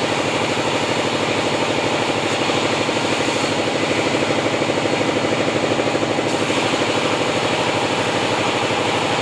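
Engine-driven band sawmill running steadily, its motor making an even, pulsing drone.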